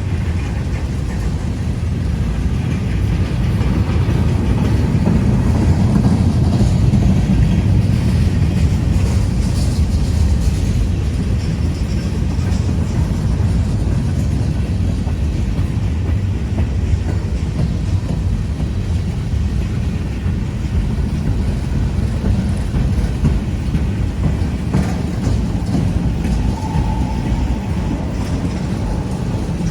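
Loaded freight train cars rolling past on a grade, with a steady low rumble and wheels clacking over the rail joints. A brief high squeal comes near the end.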